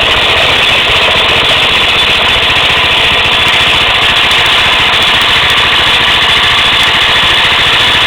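DR stump grinder's gasoline engine running loud and steady, driving the belt.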